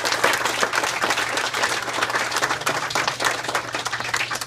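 Audience applauding: a dense run of many overlapping hand claps, over a faint steady low hum.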